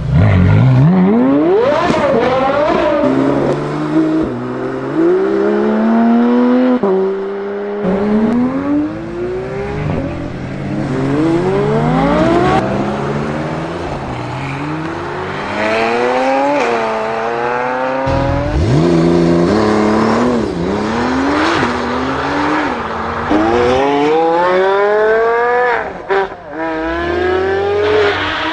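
Porsche sports car engines accelerating hard through the gears, again and again: the pitch climbs steeply and drops back at each upshift.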